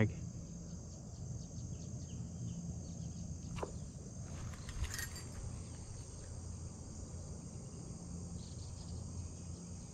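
Steady high-pitched chorus of insects, with a low background hum and a couple of light clicks near the middle.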